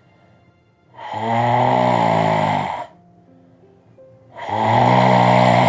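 A man doing simhagarjana, the yogic lion's roar: two long, loud roaring exhalations through the wide-open mouth with the tongue out, each lasting nearly two seconds, with a short pause between.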